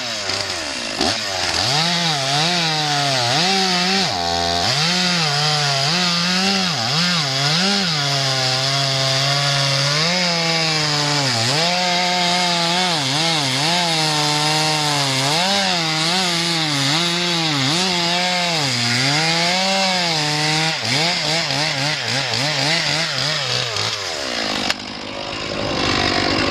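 Stihl MS461 two-stroke chainsaw cutting through a felled log at full throttle, its engine pitch dipping and recovering again and again as the chain bites into the wood. Near the end the engine drops back to idle.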